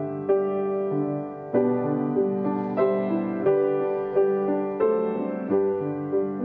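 Slow, gentle solo piano music: notes and chords struck about once a second, each left to ring and fade.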